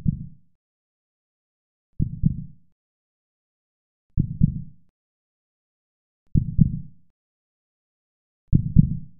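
Deep, low thuds repeating about every two seconds, five in all. Each is a cluster of two or three quick pulses that dies away within about half a second, with silence between.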